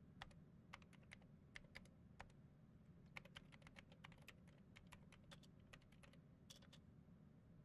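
Faint typing on a laptop keyboard: soft, irregular keystrokes, with a quicker run of keys about three seconds in, over a low steady hum.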